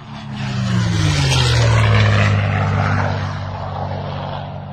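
Propeller airplane going by: its engine drone grows louder with the pitch dropping as it passes, loudest about two seconds in, then eases off to a steadier drone.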